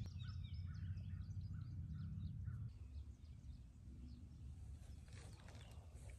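Small songbirds chirping in quick, high little notes over a low steady rumble; the rumble and most of the birdsong stop a little under three seconds in, leaving faint outdoor ambience with a few distant calls.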